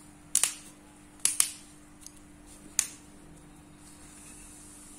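25 mm screw cap rolled onto a bottle, twisted off by hand: sharp clicks as its seal breaks, a pair about a third of a second in, another pair at just over a second and a single click near three seconds.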